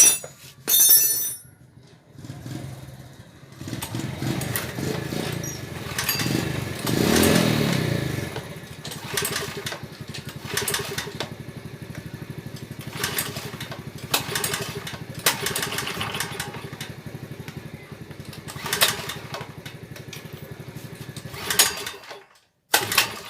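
Small petrol generator engine catches and runs, picking up speed about seven seconds in, then settling to a steady run with occasional sharp clicks, before cutting off abruptly near the end: a test run of the repaired genset.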